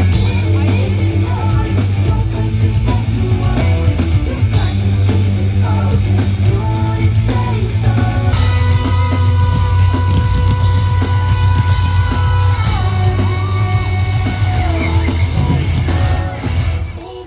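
Live pop/hip-hop music on a festival sound system, with a heavy steady bass and a woman singing over it; the bass drops out near the end and the music gets quieter.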